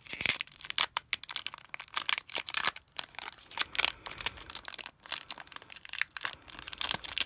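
Foil wrapper of a Pokémon TCG booster pack crinkling and tearing as it is pulled open by hand, a dense run of sharp crackles.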